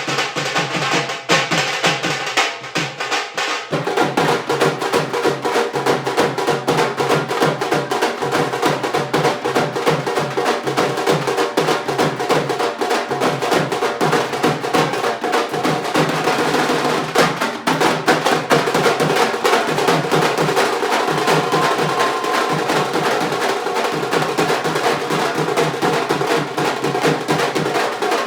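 Background music with a busy, drum-driven beat; it fills out about four seconds in.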